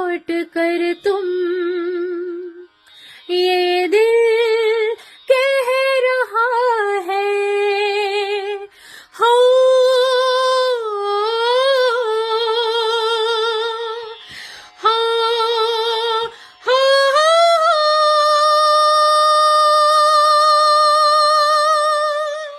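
A woman singing solo without accompaniment: melodic phrases with ornaments and vibrato, separated by short pauses, ending on one long held note in the last five seconds.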